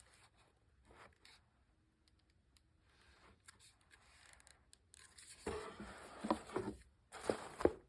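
Dry scraping and tearing handling sounds, faint at first, then louder from about five seconds in, with a few sharper strokes near the end.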